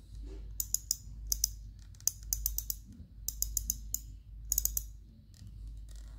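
Daiwa Exist 2000 spinning reel clicking in five short runs of rapid clicks as the spool is handled and turned by hand, the sound of its drag giving line.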